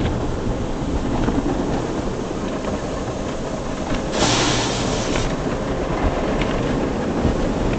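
Automatic car wash heard from inside the car: cloth brush strips rumbling and rubbing over the windshield and body, muffled through the glass, with a hiss lasting about a second about four seconds in.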